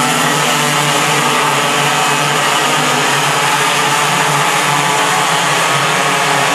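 Several racing kart engines running at once as a pack of karts laps the track: a loud, steady, dense buzz.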